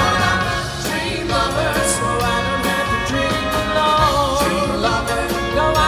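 Male vocal group singing live with a band, drums keeping a steady beat under the voices.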